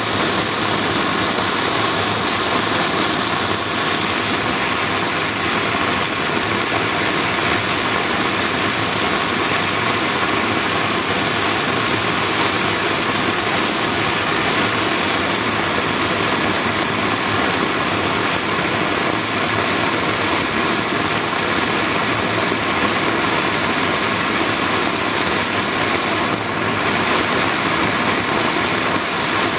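Gas torch flame burning steadily, an even, continuous rushing noise, as it heats a copper tube joint on a refrigerator evaporator for silver brazing.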